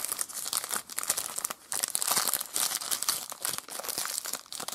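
Foil trading-card pack wrapper crinkling as it is torn open and handled: a dense run of crackles, with a brief pause about one and a half seconds in.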